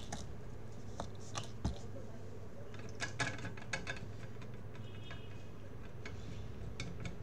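Irregular light clicks and taps of small tools being handled on a workbench, over a steady low electrical hum, with a brief faint high whine about five seconds in.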